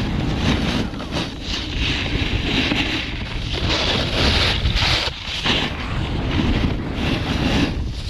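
Wind buffeting the camera microphone while a snowboard's edges scrape and hiss across groomed snow in carved turns, the hiss swelling and dropping away a few times.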